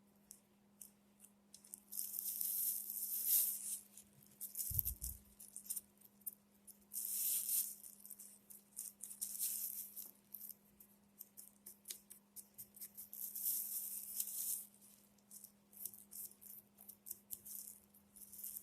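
Scrubbing and scraping at the metal mechanism of an old Singer sewing machine, in repeated scratchy strokes lasting a second or two each, as hair and dirt are worked out of it. A single low thump comes about five seconds in, over a faint steady hum.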